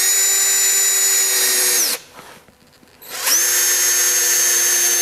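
Cordless drill driving screws into a wooden post. The motor spins up and runs steadily for about two seconds, winds down, and after about a second's pause runs again.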